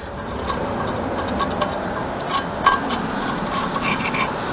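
Dirt being scraped and brushed off the steel hub of a Nashorn tank destroyer's return roller by hand, a steady rubbing with scattered small clicks of the tool on the metal.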